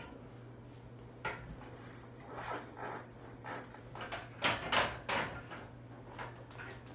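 Short rustling and knocking noises as a lifter settles his shoulders and grip under a loaded barbell in a squat rack, loudest a few in quick succession about halfway through, over a steady low hum.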